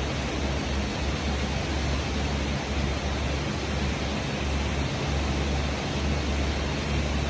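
Steady rushing noise with a low rumble underneath that wavers now and then.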